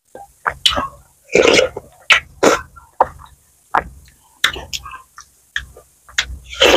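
Close-miked eating sounds of a woman biting and chewing juicy watermelon: a series of short, irregular wet bites, chews and mouth smacks.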